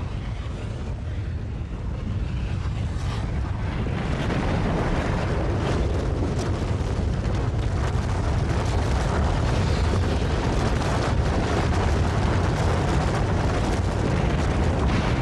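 Sound-effect rumble of a pyroclastic flow: a dense, steady low rumble with a hiss above it. It swells over the first few seconds, then holds.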